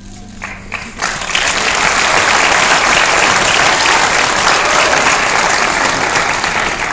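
Audience applauding: a few scattered claps, then from about a second in the whole audience joins in steady, loud applause.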